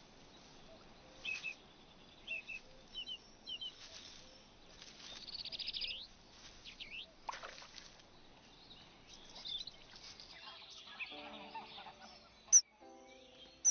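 Bird chirps and tweets: short high calls spaced a second or so apart, with a quick trill about five seconds in and a few sliding whistles. Near the end, short steady low notes join in and one sharp, loud chirp stands out.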